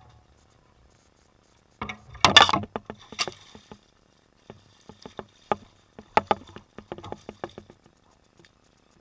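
A bowfishing-arrowed fish thrashing and splashing at the water's surface. There is one loud splash about two seconds in, then a string of sharper, separate splashes and drips that die away near the end as the fish is hauled up on the line.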